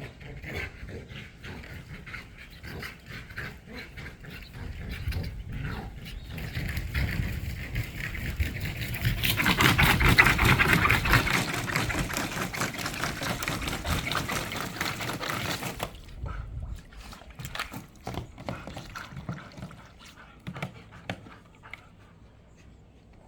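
Dogs splashing about in a water-filled dog pool. The splashing builds to its loudest about ten seconds in and stops abruptly about sixteen seconds in, leaving lighter scattered clicks and patters.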